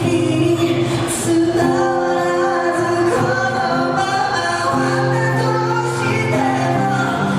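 A singer performing a pop song live over accompaniment, with long held notes.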